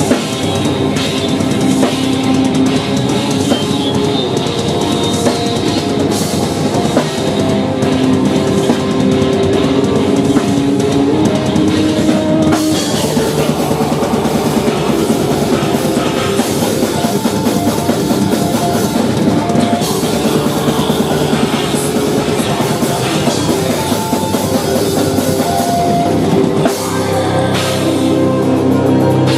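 Death metal band playing live: distorted guitars, bass and a drum kit with fast, dense drumming and cymbals. Near the end the band switches to slower, held low chords.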